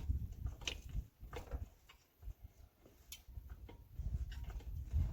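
Foot-operated hydraulic pump of a lawnmower/ATV lift being pumped by foot, giving uneven low thuds and sharp clicks as the lift rises.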